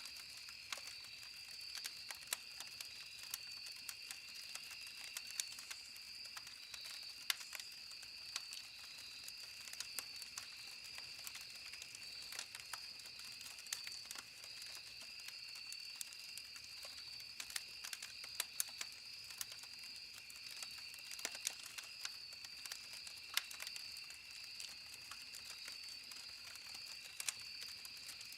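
Campfire wood crackling with irregular sharp snaps and pops, over a steady high chirring of insects.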